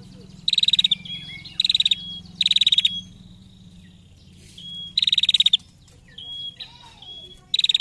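Female prenjak (prinia) giving its rapid 'ngetir' trill call: five short, fast-pulsed buzzy bursts of about half a second each, with brief thin whistled notes between them.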